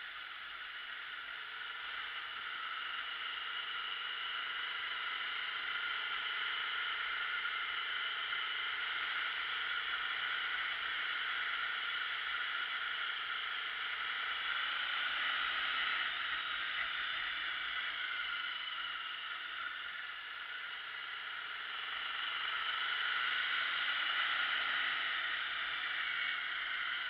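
Wind rushing over the microphone of a moving motorbike, with its engine running underneath, the engine note drifting up and down with speed. It swells a little for a few seconds near the end.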